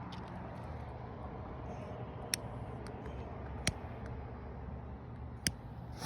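Steady low outdoor rumble, like distant traffic, with three short sharp pops spread about a second and a half apart.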